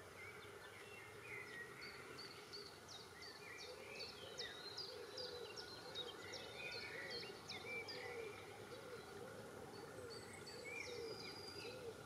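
Small birds singing in a reed-bed wetland: a series of quick, high, falling notes repeated about twice a second, with other chirps mixed in. Underneath is a low note repeating at a similar rate, over a faint hiss of background noise.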